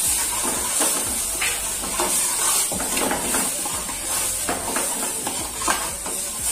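Tomato purée sizzling in a hot stainless-steel pan, a steady high hiss, while a steel ladle stirs it and scrapes against the pan in repeated strokes.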